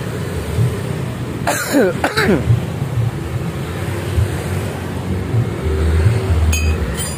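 A steady low engine rumble runs underneath, with a short cough or throat-clear about a second and a half in.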